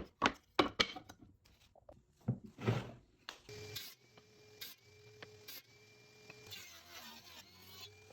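Workshop sounds: a quick run of sharp knocks of wood and a louder scrape, then a power tool's motor running with a steady hum that breaks off briefly a few times.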